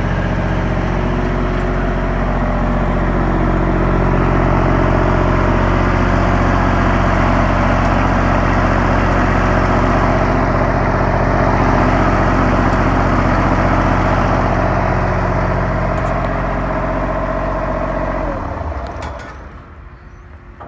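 Ditch Witch FX30 vacuum excavator's engine running steadily, then shut down near the end, the sound dying away over about two seconds.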